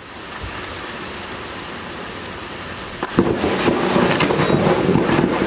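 Steady hiss of heavy rain, then about three seconds in a sudden crack of thunder that rolls on as a loud rumble.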